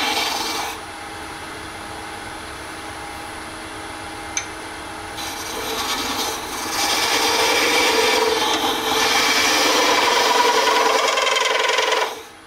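Hollowing tool cutting into a spinning Alumilite cast-resin globe on a lathe: a dense scraping cut over the lathe's steady hum. The cut is lighter for the first few seconds, with a single sharp click about four seconds in, and heavier from about seven seconds. It cuts off suddenly just before the end as the tool comes out, leaving the lathe running.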